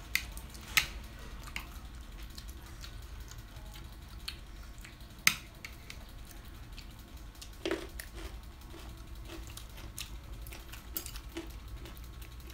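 Scattered light clicks and taps of chopsticks against a serving tray and dishes, with a few sharper taps, and soft chewing of food, over a low steady hum.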